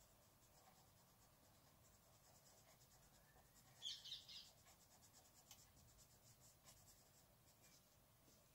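Faint scratching of a Derwent Inktense colour pencil shading on paper, with a few louder strokes about four seconds in.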